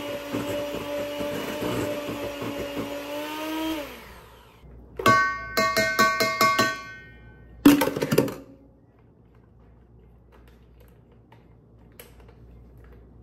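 A handheld electric mixer runs steadily in a stainless steel bowl of cake batter, then is switched off about four seconds in, its pitch falling as the motor winds down. A quick series of taps follows, with the metal bowl ringing as the beaters are knocked against it, and then a single louder clack.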